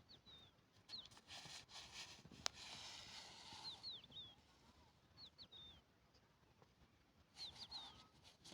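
Faint bird chirping: short quick chirps in groups of two or three, repeating every second or two. A single sharp click comes about two and a half seconds in, during a brief patch of hiss.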